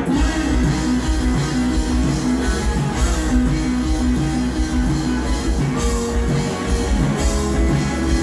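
Live rock band playing: electric guitars, bass guitar and drum kit going together at a steady beat.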